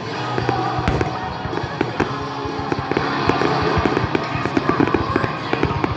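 Fireworks going off in quick succession, a dense run of pops and bangs, with music playing underneath.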